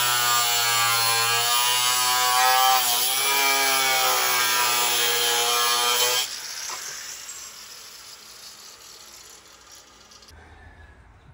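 Angle grinder with a thin cutoff wheel cutting through metal, its motor whining steadily and dipping in pitch under load about three seconds in. It stops abruptly about six seconds in, leaving only faint noise.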